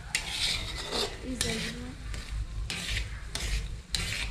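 Stirring and scraping with a utensil in a pot of food, in repeated rough strokes about every half second.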